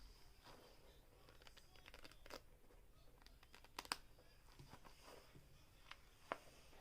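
Near silence with faint handling noise from a fidget toy being played with by hand: a few soft clicks and crinkles, the sharpest about two seconds in, near four seconds and about six seconds in.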